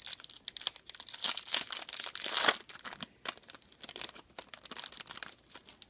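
Foil baseball card pack wrapper being torn open and crinkled, a dense run of crackling, loudest about two and a half seconds in and stopping near the end.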